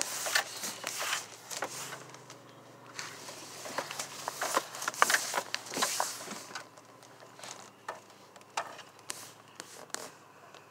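Handling noise close to the phone's microphone: irregular clicks, knocks and rubbing, busiest in the middle and thinning to a few scattered knocks near the end.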